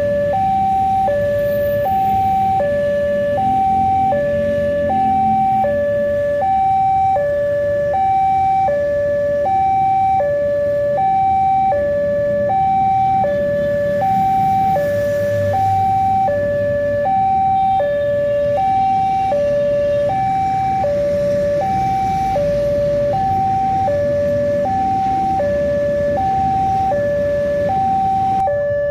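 Railway level-crossing warning alarm sounding a two-tone electronic chime, high and low notes alternating about once a second, which signals that the crossing is closed for an oncoming train. Road traffic runs low underneath.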